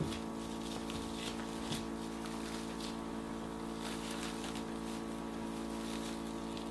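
A steady low hum with several even overtones, under a few faint crinkles and taps of plastic wrap being pressed over cake batter in a pan.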